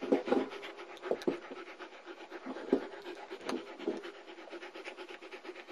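German Shepherd puppy, about four months old, panting rapidly right at the microphone, with a few louder breaths among the quick even pants.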